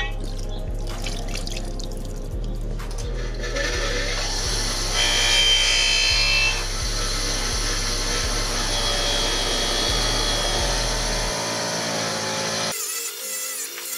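Background music with a steady beat, over a power tool with an abrasive Scotch-Brite wheel whirring on the aluminium engine case from about three seconds in until shortly before the end.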